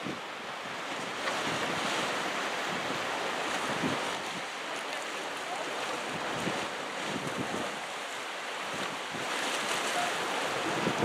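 Small sea waves washing onto a stony beach, the rush swelling and easing every few seconds, with wind buffeting the microphone.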